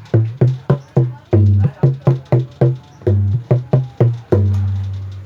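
Kendang hand drum played by hand: a quick run of strokes, many of them deep bass tones that ring at two pitches. The last bass stroke, near the end, rings longest.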